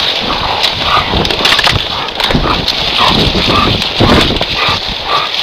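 Hunting hounds attacking a wolf: short dog yelps and snarls over the crackle and snap of twigs and brush.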